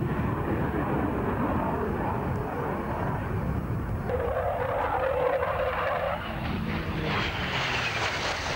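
Jet aircraft engine noise from a display flypast, a continuous rushing rumble. Near the end a high engine whine comes in and falls slowly in pitch as a jet passes.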